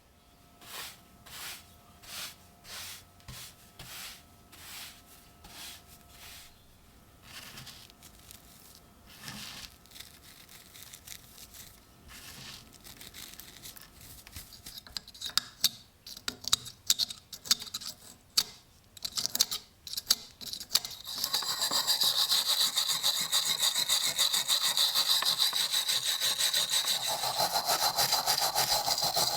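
Tool working the rusty steel of an old folding pocket knife. First comes a series of separate rubbing strokes, roughly two a second. About two-thirds of the way in it changes to a louder, continuous rasping abrasion.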